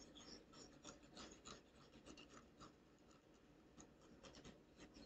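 Faint scratching of a toothpick tip dragged through wet paint on a wooden board, in many short strokes.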